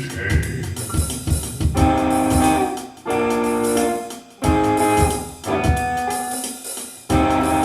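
Jazzy recorded instrumental music: drum hits, then held band chords. It cuts out abruptly and restarts about three times.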